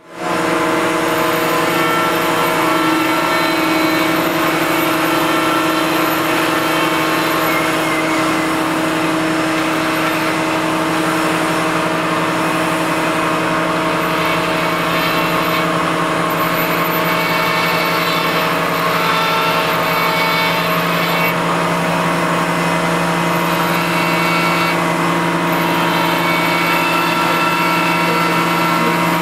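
Electric die grinder with a burr bit running steadily at full speed, its motor whine held at one even pitch while the bit grinds into white marble.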